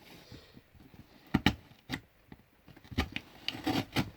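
A heavily wrapped package being forced open by hand: scraping and rubbing at the wrapping, broken by several sharp snaps and clicks.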